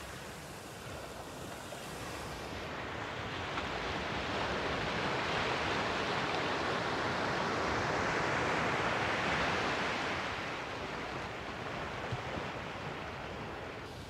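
Ocean surf at the water's edge: a steady hiss of foamy water washing over sand, swelling to its loudest as a wave breaks and rushes in around the middle, then easing off.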